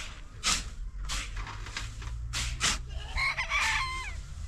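Shovels scraping repeatedly through a pile of sand and cement on the ground. A rooster crows about three seconds in, its call ending in falling notes.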